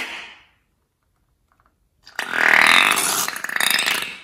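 Slime squeezed out through the cut neck of a long rubber balloon, with air forcing through it in a loud buzzing sputter that lasts about two seconds in the second half. At the very start, a short sharp snip as the balloon's tip is cut, fading within half a second.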